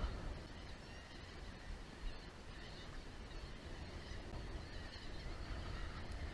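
Faint bird calls over a steady low rumble.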